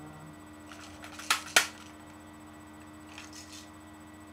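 Airsoft pistol being handled: a few faint ticks, then two sharp clicks about a third of a second apart a little over a second in.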